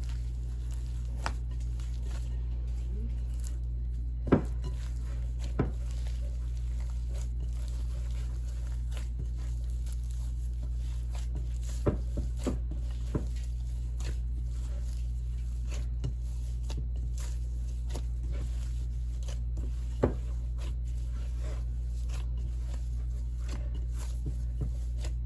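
Hands mixing and kneading masa dough in a bowl: soft handling noise and a few sharp knocks against the bowl, over a steady low hum.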